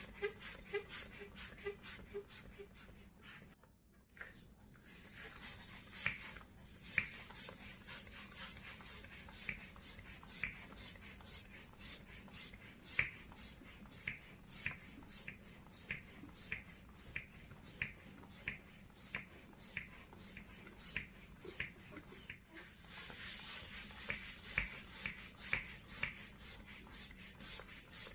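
Rubber balloon being handled and rubbed by hand: a run of short squeaks and rubbing clicks, about two or three a second, with a brief pause about four seconds in.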